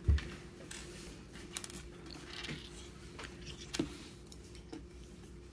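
Small plastic puzzle pieces of a dragon figure clicking and rattling as they are handled and fitted together: a soft thump at the start, then a few scattered light clicks.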